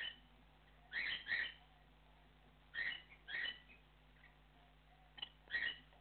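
Cockatiel calling: one short high call at the start, then three pairs of short calls, each pair a third to half a second apart and the pairs about two seconds apart.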